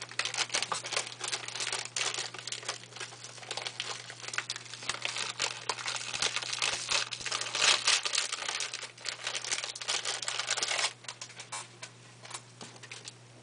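Paper wrapper of a Drumstick ice cream cone being crinkled and torn off by hand: a dense, busy crackling that thins out about eleven seconds in to a few scattered crackles.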